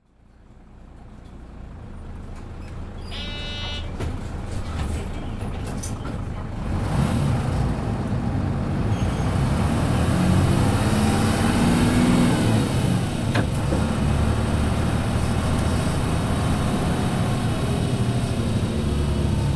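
Running sound of a Hino KC-RU1JJAA bus, a 9.5 m short-bodied large bus with a medium-duty engine, which the uploader calls a bus with many unusual noises. The sound fades in, and a short electronic tone comes about three seconds in. The engine then pulls harder and climbs in pitch, drops back at a gear change about two-thirds of the way through, and runs on steadily.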